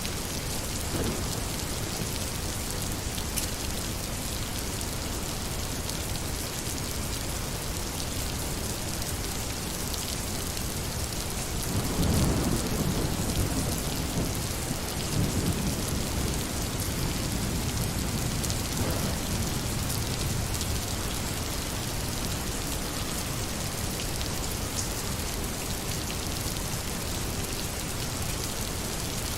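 Steady rain falling on a surface, with distinct drops ticking through it. About twelve seconds in, a low roll of thunder swells up and rumbles for several seconds before fading back under the rain.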